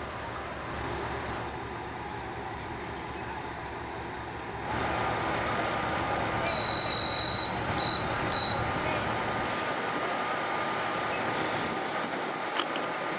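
A Kominato Railway diesel railcar running past, its noise rising sharply about a third of the way in and its low rumble falling away after the middle. In between, a high beep sounds, one long then two short.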